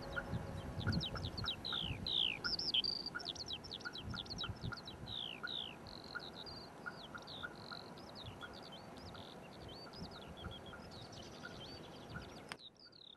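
Several small birds chirping and singing in pine woodland, with quick falling whistles and repeated short notes. The singing is busiest in the first half and cuts off abruptly near the end.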